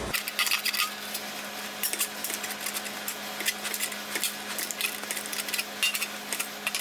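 Sheet-metal fender panel being stretched by hand: a run of light, irregular metallic clicks and scrapes, over a steady low hum.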